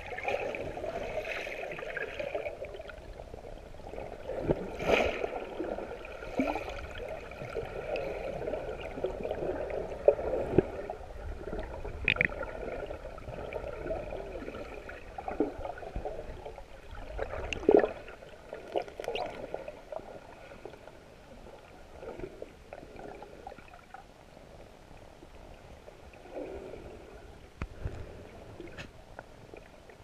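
Muffled underwater sound of a camera held below the surface: water gurgling and sloshing with scattered sharp clicks and knocks, growing quieter in the second half.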